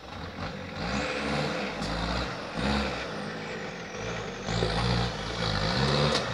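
Off-road 4x4's engine revving hard under load, rising and falling in pitch about once a second as it crawls over rocks.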